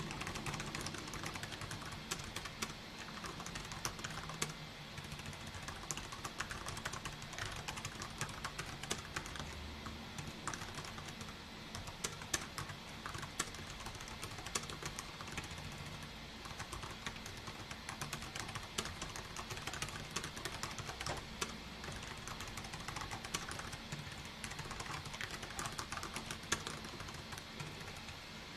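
Continuous typing on a computer keyboard: a steady, irregular stream of key clicks, over a faint low hum.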